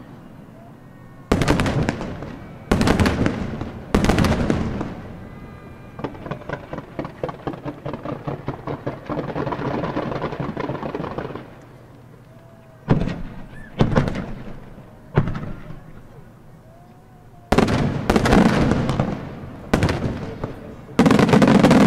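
Professional fireworks display: shells bursting with sharp booms a second or so apart, then a quick string of smaller shots for about five seconds, then more booms that crowd together into a dense barrage near the end.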